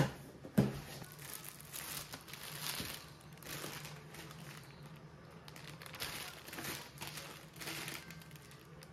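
Plastic food packaging crinkling and rustling in bursts as sealed frozen-food bags are lifted and handled, with a sharp knock about half a second in.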